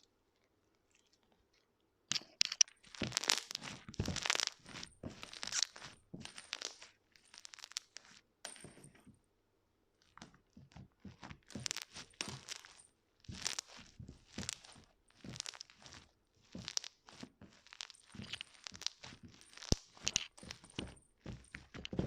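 Hands squeezing and stretching foam-bead cotton slime, making irregular crunchy crackles and squishes. The sound starts about two seconds in and pauses briefly around the middle.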